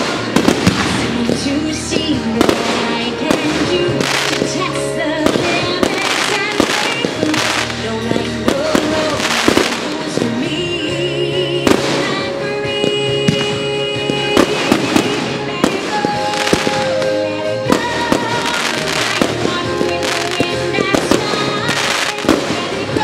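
Firework shells bursting in a string of sharp, irregular bangs, mixed with a music soundtrack that plays steadily underneath.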